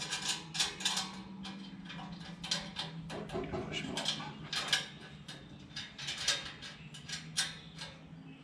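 Irregular metallic clicks and clinks of hand tools and stainless bolts as an aftermarket exhaust's connection piece is fitted and bolted together, over a steady low hum.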